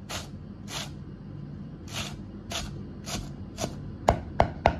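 Chinese cleaver chopping Chinese chives on a wooden chopping block: soft slicing strokes about every half second, turning near the end into quicker, sharper knocks of the blade on the block.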